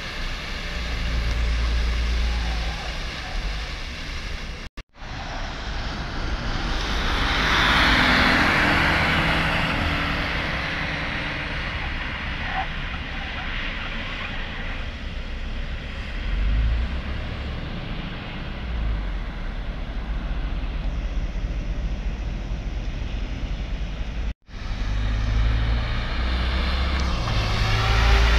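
City buses driving on a wet test track, engine noise and tyre spray heard from the trackside; a bus passes close near the end. The sound drops out briefly twice.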